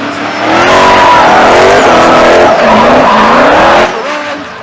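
Drift car sliding by at full throttle: the engine revving hard with a wavering pitch over the hiss and squeal of spinning tyres. It is loud for about three seconds, then falls away abruptly.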